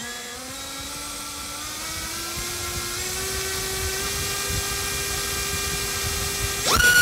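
iFlight XING X2207 2750KV brushless motor spinning a DALprop Cyclone 5047 propeller on a thrust test stand. At low throttle it gives a low whine that climbs slowly and then holds steady. Near the end it jumps sharply to a much higher, louder whine as the throttle is opened toward full.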